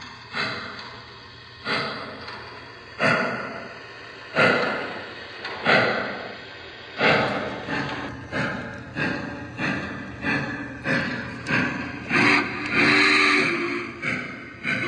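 Model steam locomotive's onboard sound system chuffing, the chuffs slow at first, then quickening to about two a second as the engine picks up speed. A multi-tone steam whistle sounds for about two seconds near the end.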